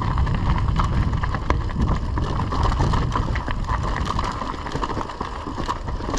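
Mountain bike rolling over a rocky gravel trail: tyres crunching on loose stones, with the bike rattling in many quick clicks, over a steady low rumble of wind on the microphone.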